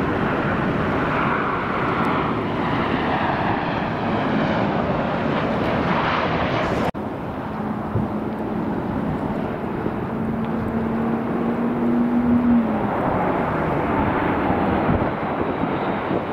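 Jet engines of Boeing 737 airliners on final approach with landing gear down: a steady, loud rushing noise. It breaks off sharply about seven seconds in and picks up again as a second 737 passes low overhead, with a faint humming tone that rises slightly before fading.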